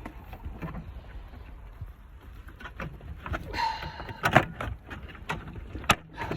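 Scattered clicks, knocks and scraping of parts being handled and pulled in a car's engine bay, with two sharp knocks about four and six seconds in.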